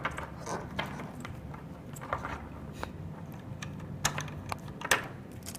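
Scattered small clicks and handling noise of an LVDS cable's male plug being fitted into its socket on the interface box, with two sharper clicks about four and five seconds in.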